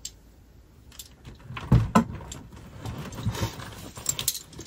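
Handling noises from fetching a handbag in a closet: two dull thumps a little under two seconds in, then a run of light clicks and rustling.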